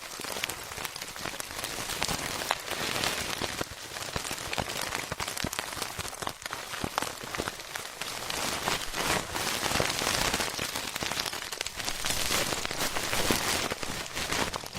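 Ear-cleaning ASMR sounds: an ear pick scraping and scratching, a steady dense crackle thick with tiny clicks.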